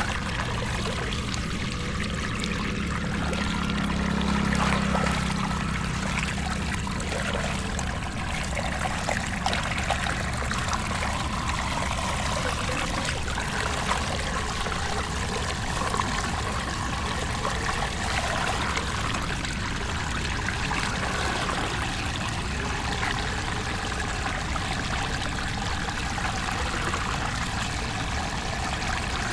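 Floodwater running and pouring steadily. A low hum swells and fades about four to five seconds in.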